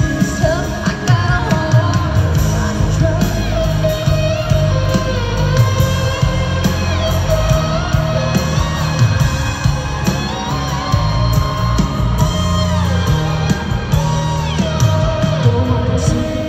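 Live country band at full volume, heard from the audience: guitars over bass and drums, with a woman singing.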